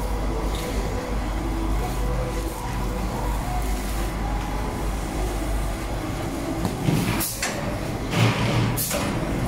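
JBJ-7 comforter packing machine running with a steady low motor hum and mechanical rumble. Two short, louder rushes of noise come near the end, about seven and eight seconds in.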